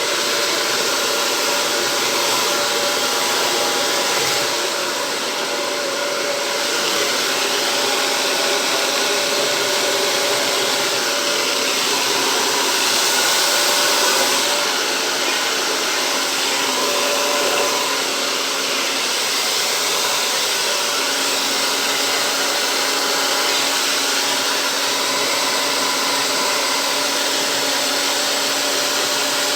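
Hair dryer running continuously, a steady rush of air with a motor whine, used to blow fluid acrylic paint across a canvas in a Dutch pour.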